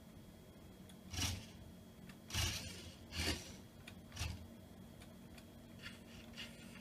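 Toy radio-controlled car (CCP RealDrive EXCEED 1/18 GT-R) driven in four short spurts about a second apart, its small electric motor and plastic gears whirring briefly each time, followed by a few faint clicks near the end.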